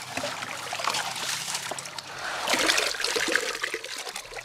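Muddy water splashing and trickling as soil is washed by hand in pans to sift it for gold, with a run of louder splashes about two and a half seconds in.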